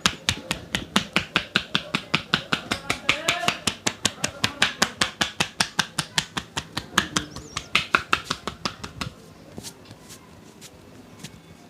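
A massaging barber's hands striking the client's body in a fast, even rhythm, about four to five slaps a second, the percussive chopping-and-patting strokes of an Indian head and body massage; they stop about nine seconds in.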